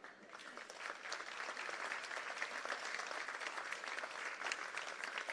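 Audience applauding, many hands clapping at once; it swells in over the first second, then holds steady.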